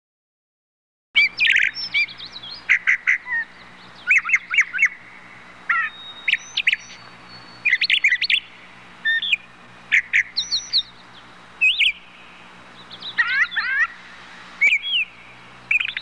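Bird calls, given as crane calls: many short, high calls in quick clusters, starting about a second in, over a steady low hum.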